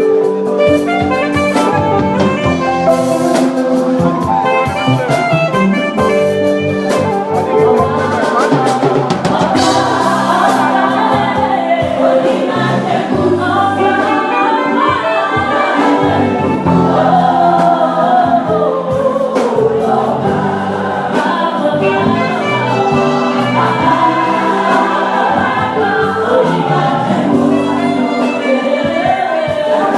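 Church choir singing a gospel anthem to instrumental accompaniment, with held chords and a moving melody.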